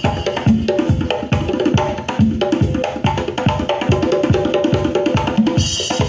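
Recorded music with a busy drum and percussion beat, played loud through a sound-system speaker stack.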